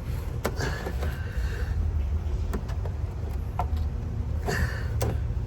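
A steady low rumble with a few scattered clicks and scrapes of a socket wrench being worked on a car's oil drain plug.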